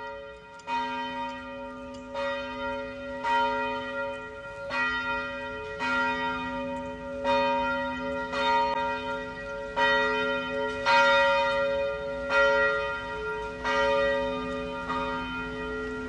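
Church bells ringing, struck at an even pace of roughly one stroke every second and a half. The deep tones hum on between strokes, so the ringing overlaps into a continuous sound.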